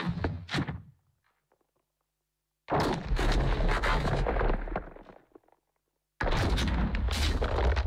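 A sound-effect sample played back from a sampler: dense bursts of rapid sharp crackling impacts, each starting abruptly and dying away. One fades out in the first second, another begins about three seconds in, and a third begins near the end.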